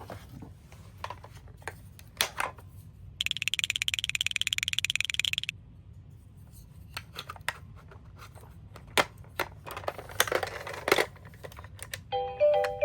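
Toy minicars clicking and clattering as they are handled, with a fast, even rattle lasting about two seconds near the start and a scrape later on. A short tune begins just before the end.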